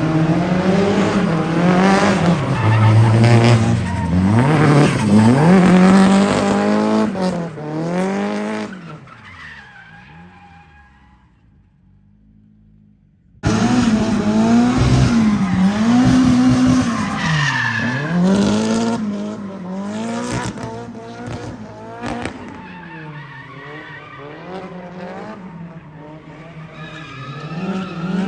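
Drift cars' engines revving up and down hard, bouncing between throttle and lift, with tire squeal as they slide. Around nine seconds in the sound dies away, then cuts back in suddenly with more revving and skidding.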